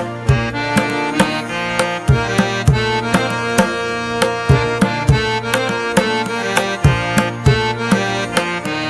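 Instrumental music with a steady hand-drum beat under held melodic notes.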